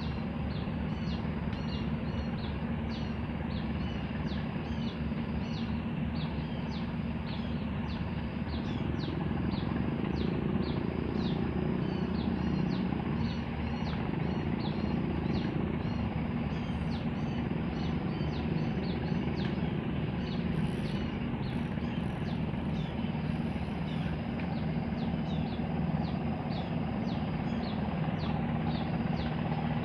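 Outdoor riverbank ambience: a steady low drone, with a long run of short, falling high chirps repeating about two times a second.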